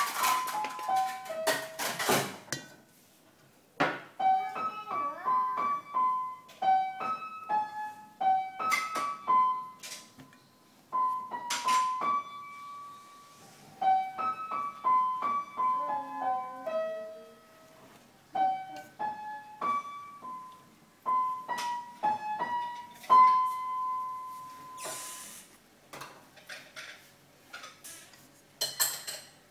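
Piano music playing a simple melody of single notes. Light metallic clinks of a pastry blender against a steel mixing bowl come now and then, thickest near the end.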